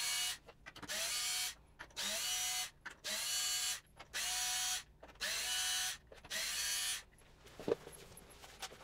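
Cordless drill-driver running in about seven short bursts, roughly one a second, each spinning up with a rising whine that then holds steady, as it backs the screws out of the speaker cabinet's top panel. The bursts stop about seven seconds in, leaving a few light clicks.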